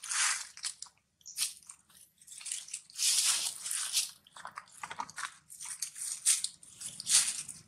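Dry fallen leaves rustling and crunching in irregular bursts as macaques move over them.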